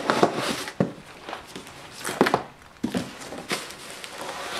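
Unpacking a cardboard shipping box by hand: a bubble-wrapped package and cardboard rustle and scrape, with several sharp knocks spread through.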